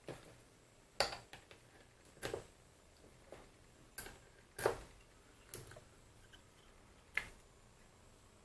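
Metal parts of a mini lathe's topslide clinking and tapping as they are handled and set down: about half a dozen separate sharp clinks, a second or so apart.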